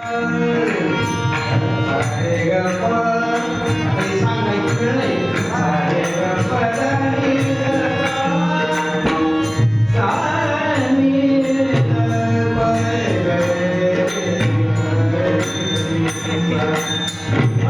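A man's voice singing a devotional melody over sustained instrumental accompaniment, with percussion keeping a steady beat.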